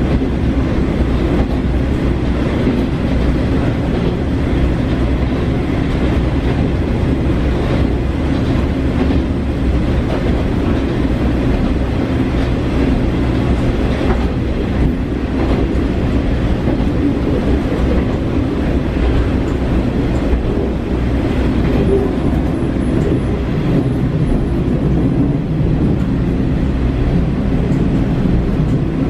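Cabin noise inside a KiHa 40 diesel railcar under way: the underfloor diesel engine and the wheels on the rails make a steady, loud drone, with faint scattered clicks.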